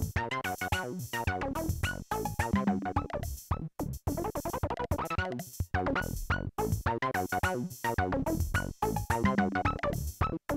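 Polivoks analog synthesizer playing a repeating pattern of short, pitched notes over Roland CR-5000 drum machine beats, as the repaired synth is tested.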